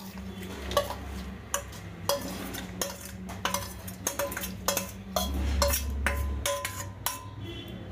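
A spoon knocking and scraping against a steel pan, a dozen or so sharp clinks, some ringing briefly, as the oil-and-spice tempering is scraped out of the pan. A steady low hum runs underneath.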